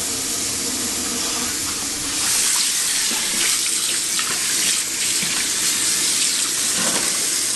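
Kitchen faucet running water into a white fireclay apron-front sink: a steady splashing rush. It grows louder about two seconds in and cuts off sharply at the end.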